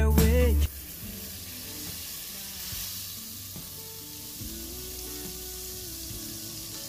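Butter sizzling as it melts in an aluminium frying pan, a steady hiss. A sung pop song plays over the first moment and cuts off abruptly under a second in.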